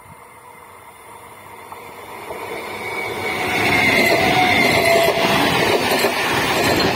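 Electric multiple-unit local train approaching at speed, growing louder over the first few seconds, then passing close by from about four seconds in as a steady rush of wheels on rail. Thin high squealing from the wheels runs over the noise.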